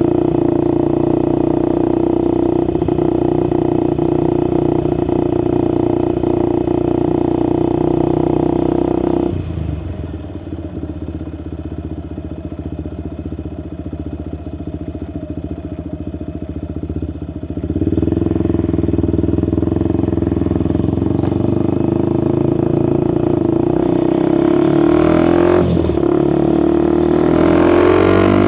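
Suzuki Gixxer SF 250's single-cylinder engine through a Yoshimura R11 exhaust, ridden at a steady throttle. About a third of the way in it drops quieter for several seconds as the throttle eases off. It comes back on, and near the end it revs up with a rising pitch.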